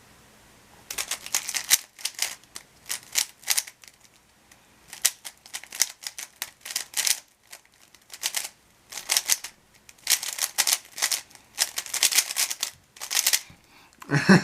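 A Rubik's speedcube being turned fast through a full timed solve: quick bursts of plastic clicking from the layer turns, broken by brief pauses between steps, lasting about twelve and a half seconds. A single thump comes near the end.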